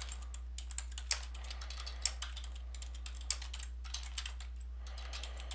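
Computer keyboard typing: a run of short, irregular keystrokes, over a steady low hum.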